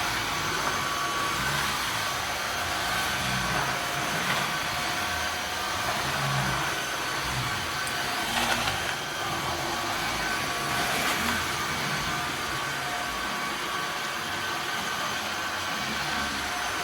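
Tineco Floor ONE S7 PRO cordless wet-dry floor vacuum running in auto mode: a steady motor whine over an even rushing of air.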